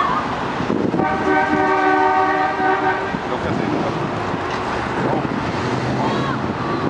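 A vehicle horn held for about two seconds as a two-note chord, over the low running of slowly passing cars.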